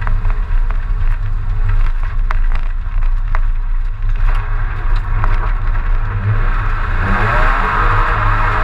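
BMW M30B35 3.5-litre straight-six in an E30 coupé running hard under load at racing speed, with sharp ticks and knocks scattered through. The revs climb near the end as the car accelerates.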